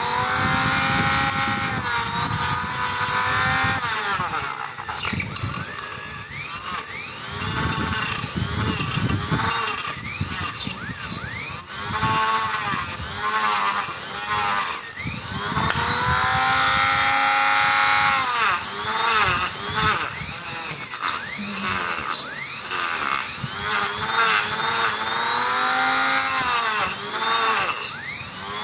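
Small high-speed rotary tool spinning a mini HSS circular saw blade through material, its high whine sagging in pitch each time the blade bites and climbing back as it frees, over and over.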